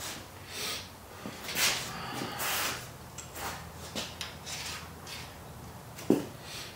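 Hand tools and metal parts being handled while a wheel is taken off a generator's axle: a run of irregular scrapes and rattles, then a sharp metal clank about six seconds in.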